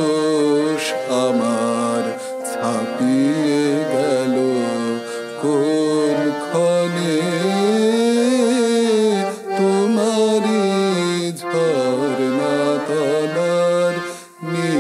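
A man singing a slow, melismatic song, accompanied by a harmonium holding sustained reed chords. Recorded through a FIFINE K669B USB condenser microphone.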